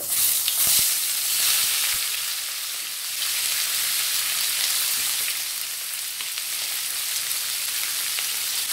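Sliced onions sizzling in hot coconut oil in a frying pan. The hiss starts suddenly as they are tipped in and then runs on steadily, with a few faint knocks in the first two seconds.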